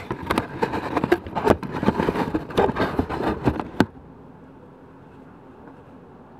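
Camera handling noise: close rustling and scraping with many sharp clicks as the camera is shifted into place, stopping abruptly about four seconds in. After that only a faint steady background hiss.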